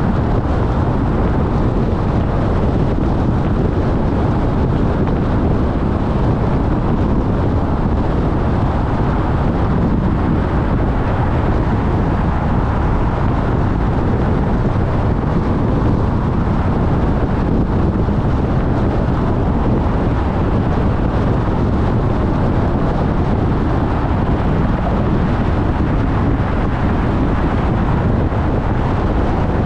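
Steady road noise of a car driving at an even speed: a constant rumble of tyres and engine with no change in level.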